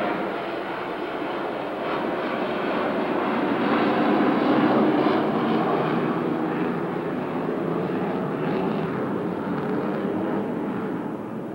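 An airplane flying over: a steady, noisy rumble that swells to its loudest about halfway through and then slowly fades.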